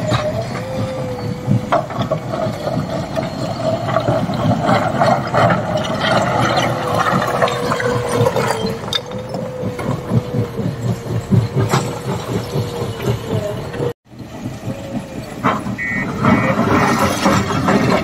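JCB 3DX backhoe loader's diesel engine running under load with a steady whine while the backhoe bucket digs into a pile of broken stone, the rocks knocking and clattering. After a break about 14 seconds in, the machine moves off and its reversing alarm beeps repeatedly near the end.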